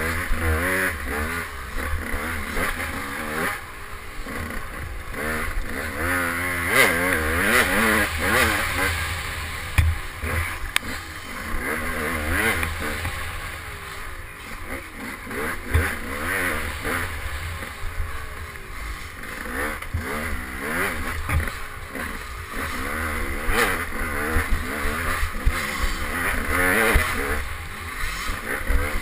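KTM 200 XC two-stroke dirt bike engine revving up and down again and again as it is ridden hard along a tight, bumpy trail, with occasional knocks and clatter from the bike hitting bumps.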